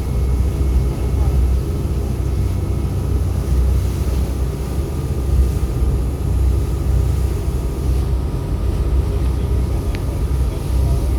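Passenger ferry under way, its engines giving a steady low drone.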